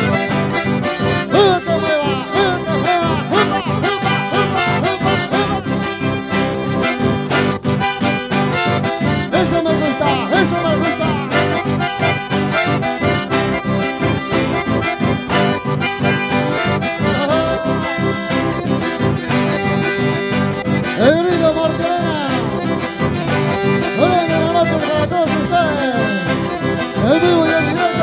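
Live dance music led by an accordion, over a steady beat.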